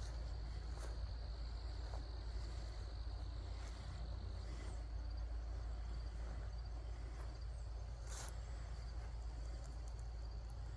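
Crickets trilling in a steady high tone that fades about halfway through, over a constant low rumble, with a brief click near the end.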